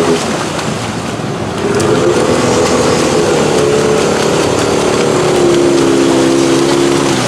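Off-road mud bog vehicle's engine running hard under load, its revs dipping at the start, climbing again about a second and a half in, then holding a little lower near the end.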